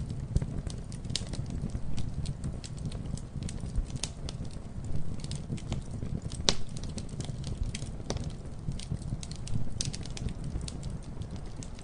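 Wood campfire burning, with a steady low rumble of flame and frequent sharp crackles and pops of the burning wood, two louder snaps about six and a half and eight seconds in.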